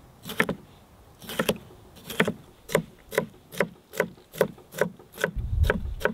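A handmade steel kitchen knife chopping a red bell pepper on a wooden cutting board. The blade knocks against the board in a steady rhythm, a few slow cuts at first and then about two to three a second.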